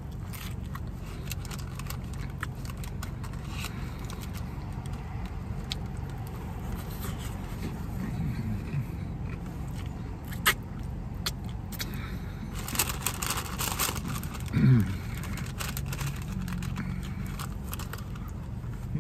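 A hard-shell taco being crunched and chewed, with scattered crackles of the shell and paper wrapper, over a steady low hum inside a car. Twice, a short murmur of the eater's voice.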